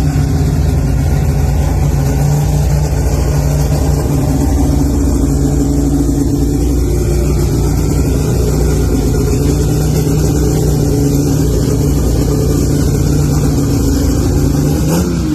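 Car engine idling steadily and loudly, then a quick rev near the end that rises and drops back.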